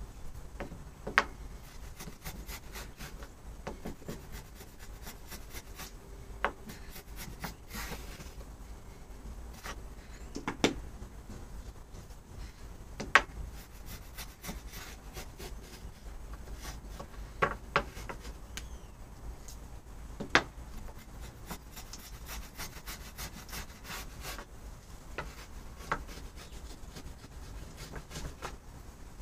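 Small brass hand plane worked in short strokes along a pine board, the blade scraping and shaving the wood, with a sharp knock now and then.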